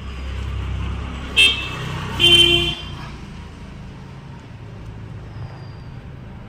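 Road traffic: a vehicle passing with a low rumble and a high-pitched horn tooting twice, a short toot about a second and a half in and a longer one just after two seconds. The rumble fades out after the second toot.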